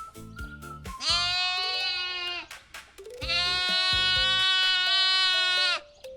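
A farm animal bleating twice: a call of about a second and a half, then a longer one of over two seconds, both holding a steady pitch. Light background music with short bass notes plays between the calls.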